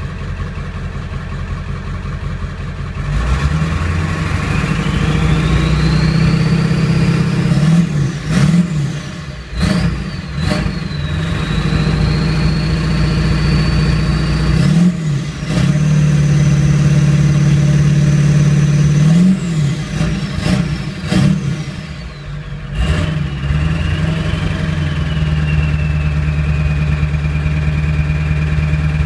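1997 Ford F350's 7.3-litre Powerstroke turbodiesel V8 revved several times from idle, with the turbocharger whistle rising in pitch as it spools up and held high during two sustained revs. Several quick blips follow each long rev. Near the end the engine drops back to idle and the turbo whistle falls and lingers as it spools down.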